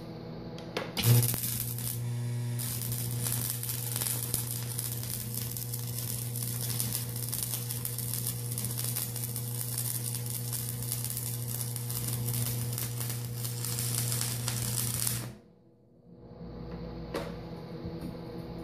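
Electric arc welding with a Montgomery Ward Powercraft welder: the arc strikes about a second in with a sharp crack, then crackles and sizzles steadily over the welder's low hum while a bead is laid on steel. It cuts off abruptly about 15 seconds in as the weld is stopped.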